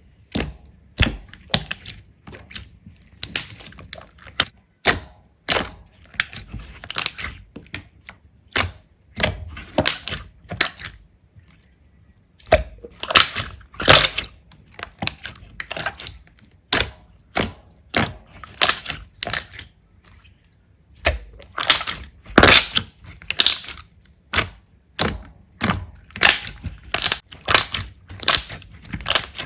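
Slime being squeezed and poked, making a steady string of sharp, crackly pops and clicks, several a second, with short pauses about twelve seconds in and around twenty seconds in.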